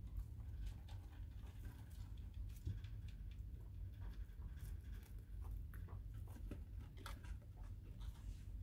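Faint scratchy rustling and small scattered clicks of a young Netherland Dwarf rabbit kit crawling about on its bedding, over a low steady hum.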